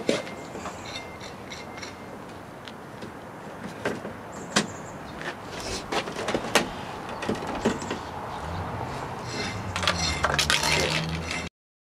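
Plastic car grille being worked loose by hand, with scattered sharp clicks and knocks as its clips and tabs give. A low hum joins in for the last few seconds, and the sound cuts off suddenly near the end.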